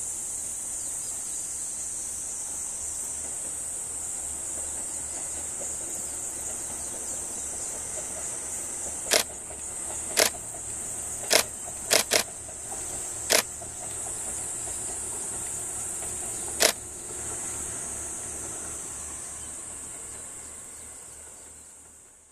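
Steady high-pitched drone of summer insects in the forest. Seven sharp clicks come between about nine and seventeen seconds in, two of them almost together.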